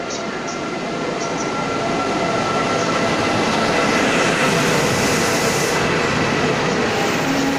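Express passenger train hauled by a Siemens Vectron electric locomotive pulling into the platform: the rumble of wheels on the rails swells as the locomotive and its coaches pass close by, loudest about four seconds in, with a faint steady high whine running through it.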